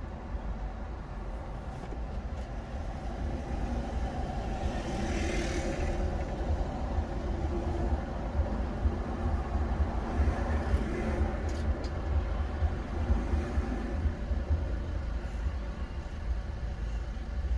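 Car cabin noise: a steady low engine and road rumble heard from inside the car, with a brief rush of hiss about five seconds in.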